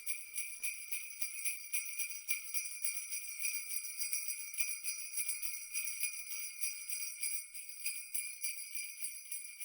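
Sleigh bells jingling with a quick, steady shake.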